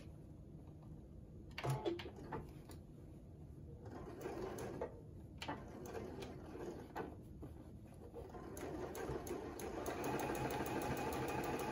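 A few light clicks and fabric rustling as the stuffed piece is set under the needle. About eight seconds in, a Juki sewing machine starts stitching a straight seam and runs at a steady, rapid pace.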